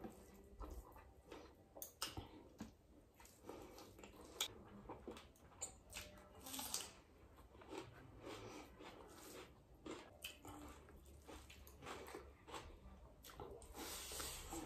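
Faint chewing and mouth sounds of a person eating rice and curry by hand, with irregular soft wet clicks as the food is mixed and chewed.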